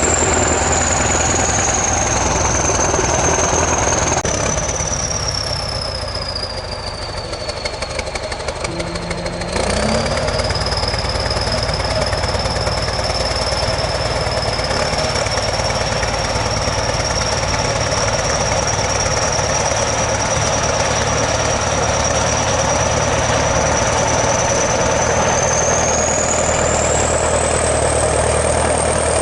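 ChTZ T-170 bulldozer's diesel engine running, with a high whine over it. About four seconds in, the engine drops back and the whine falls in pitch; near ten seconds it picks up again sharply, and the whine climbs once more near the end.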